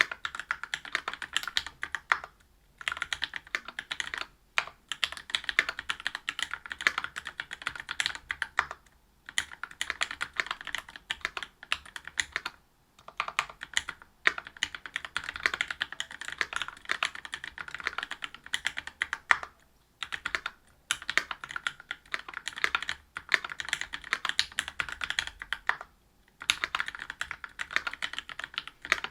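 Typing on a Whale 75 mechanical keyboard with stock Gateron Milky Red Pro linear switches (45 g) in a brass plate under GMK keycaps. Rapid runs of keystroke clacks are broken by brief pauses every few seconds.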